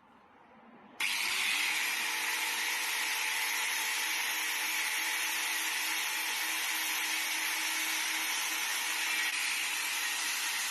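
Small electric grinder spinning up, then, from about a second in, grinding steadily against a carbon brush to cut it down to size: a loud, even grinding noise over the motor's steady tone.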